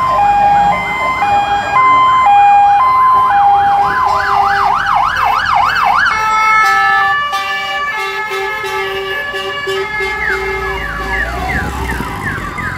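Fire engine sirens from a passing column of fire trucks: a two-tone hi-lo siren, then a fast rising-and-falling yelp about four to six seconds in, then steady held tones, and quick rising sweeps near the end. A truck engine rumbles low near the end.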